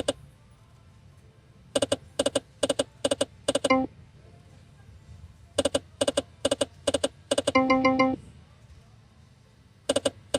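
Jungle Wild video slot machine spinning: a run of short chimes about three a second as the reels stop one by one, closing with a brief rising tone. A second spin follows, ending in a held chime chord, and a third begins near the end.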